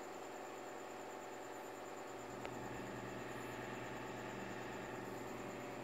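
Quiet room tone: a steady low hum under a faint hiss, with one faint click about two and a half seconds in.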